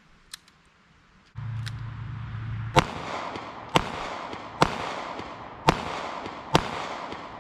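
Five shots from a Taurus Model 85 .38 Special revolver, fired at about one a second, each sharp report followed by a short echo. The rounds are mild 158-grain lead round-nose handloads.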